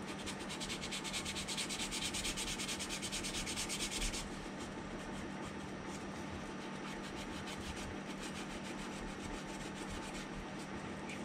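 Sandpaper rubbed by hand over a puttied seam on a plastic model hull in rapid back-and-forth strokes, knocking down excess filler putty. The strokes are brisk and hissy for about the first four seconds, then turn to lighter, softer rubbing.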